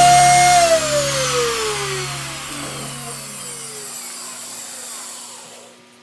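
Electric wood router switched off and spinning down: its high motor whine falls steadily in pitch and fades away over several seconds.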